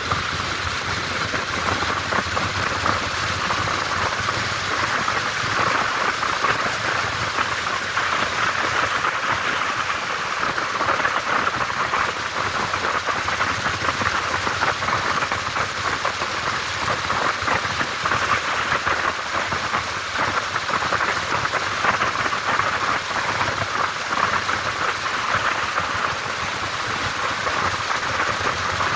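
Steady rushing wind and road noise from a moving motorcycle at riding speed, picked up by a camera mounted on the bike.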